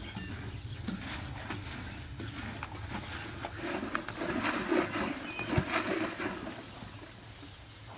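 Liquid sloshing inside a hanging wooden log butter churn as it is swung back and forth, with scattered knocks. It gets louder about halfway through, then eases off near the end.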